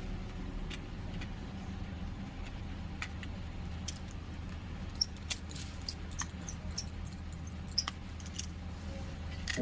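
Scattered light clicks and taps from small tools and parts on a smartphone under repair, over a low steady hum.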